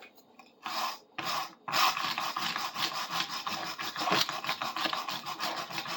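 Masking tape being peeled off a bar clamp's handle: two short tearing pulls in the first second and a half, then a long continuous crackling peel.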